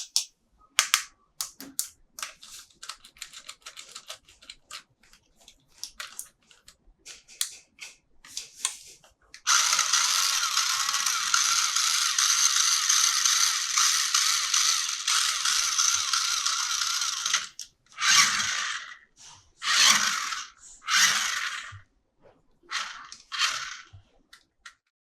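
Toy packaging and plastic toy parts being handled: scattered small clicks and crinkles, then an even high hiss lasting about eight seconds from about ten seconds in, then a few short rasps.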